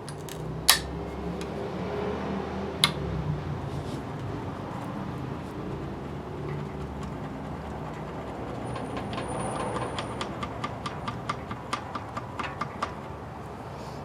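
Hand tools working on a seized engine's connecting rod. Two sharp metal clicks come early, then a run of about four quick clicks a second near the end, over a steady low hum.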